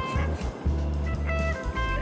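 Background music led by a plucked guitar, its notes changing every fraction of a second over a low bass line.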